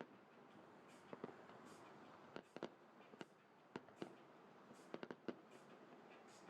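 Fireworks going off: about a dozen sharp pops and bangs at irregular intervals, some in quick pairs, over a faint background hiss.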